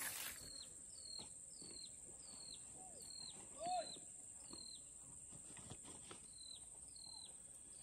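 Outdoor wildlife sounds: a bird repeats a short high chirp with a downward flick, roughly twice a second, over a steady high insect drone. A lower rising-and-falling call stands out briefly near the middle.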